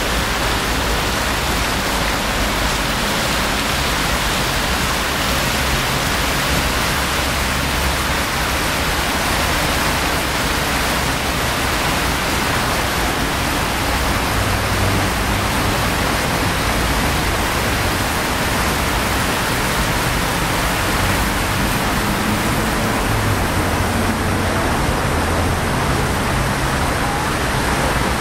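Steady rush of water from a fountain's row of jets splashing into its basin, with a low rumble that swells now and then, around 15 and 24 seconds in.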